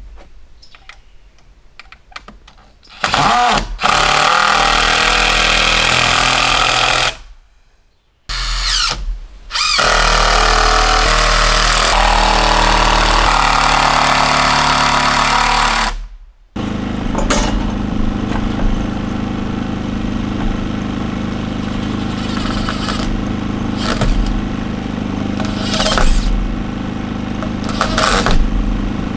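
Power tool running in long loud stretches, stopping briefly twice, then a steady motor running on for the rest.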